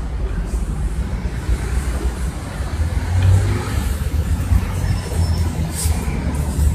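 Low, steady rumble of outdoor street background noise, with a few faint clicks near the end.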